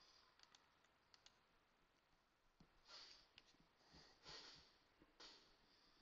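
Near silence: room tone with a few faint computer-mouse clicks in the first second or so, then a few soft hissing sounds about three, four and five seconds in.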